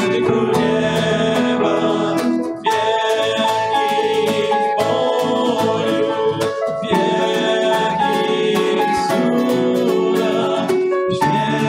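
Male voices singing a worship song in Polish, accompanied by strummed acoustic guitar and piano, in sung lines of about four seconds each.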